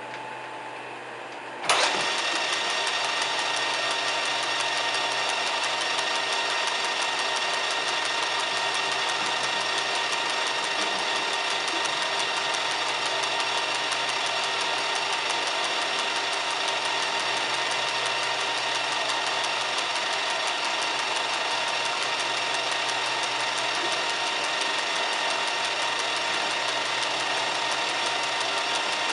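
Metal-turning lathe switched on with a sudden clunk about two seconds in, then running steadily, its motor and gearing giving a constant whine of several tones over a hiss.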